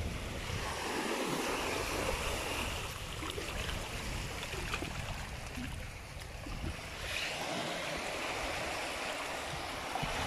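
Small sea waves washing up onto a sandy beach and around rocks, swelling about a second in and again about seven seconds in.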